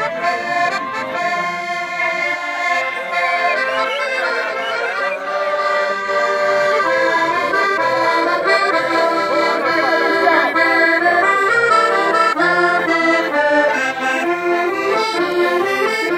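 Two accordions playing a lively dance tune together, the melody changing note quickly over a steady bass beat.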